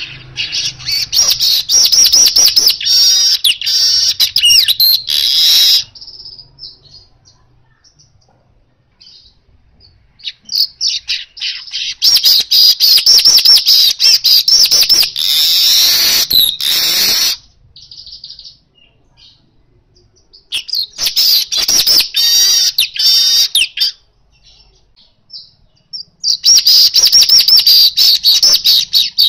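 Male weaver bird (manyar) singing a rapid chattering song in four bouts of several seconds each, with short pauses between.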